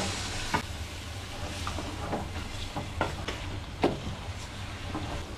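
Food sizzling in a cooking pot while being stirred, with scattered sharp knocks of the utensil against the pot.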